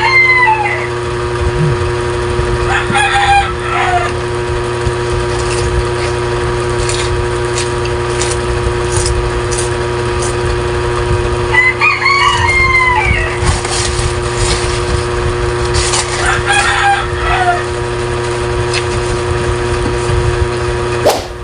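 A rooster crowing repeatedly, about four drawn-out crows spread over twenty seconds, over a steady background hum.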